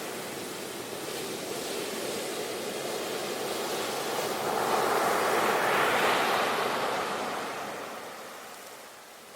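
Sea waves washing in: a steady rush of surf that swells to a peak about halfway through, then recedes and dies down near the end.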